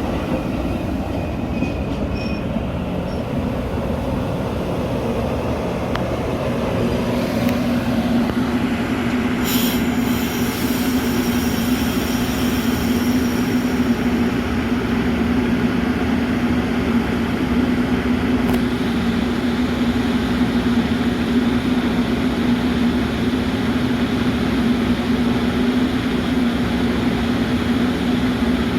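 Metra commuter train running: a steady rumble, joined about six seconds in by a low hum that holds to the end, with a hiss that starts near ten seconds in and fades over a few seconds.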